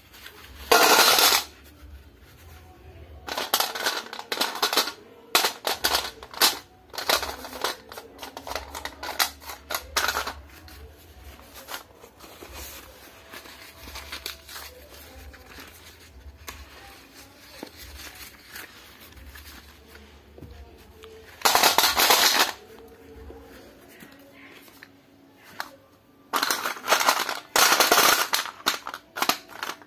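Paper packets of slate pencils torn open and crumpled in a few loud, second-long bursts of rustling, with slate pencils clicking and clattering as they drop into a metal plate.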